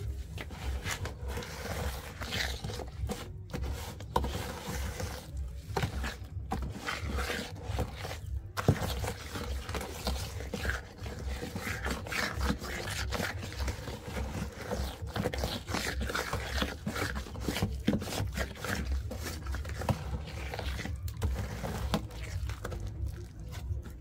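A flat wooden stick scraping and squelching through thick soap paste in a plastic basin, in irregular stirring strokes, over a steady low rumble.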